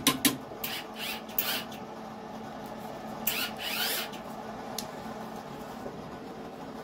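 A few sharp clicks and a short scraping rustle as the welding gear and work are handled, over the steady hum of a switched-on MIG welder that is not striking an arc. The welder is failing to weld, which the owner puts down to rusty MIG wire.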